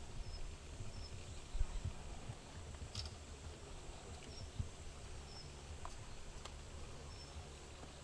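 Outdoor ambience: low wind rumble on the microphone, with a faint, short high chirp repeating about every second and a brief click about three seconds in.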